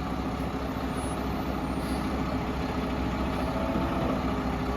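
Large truck engine running steadily.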